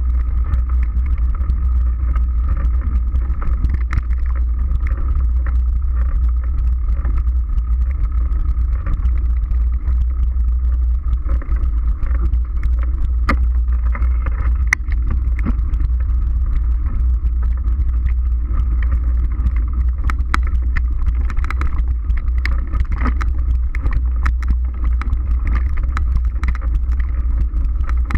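Wind buffeting the microphone of a camera on a moving mountain bike, a steady low rumble. Frequent sharp clicks and knocks come from the bike rattling over the dirt trail.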